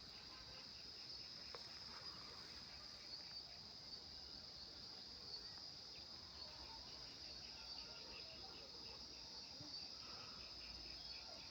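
Faint, steady high-pitched insect chorus of crickets trilling, with a lower chirp pulsing several times a second over it.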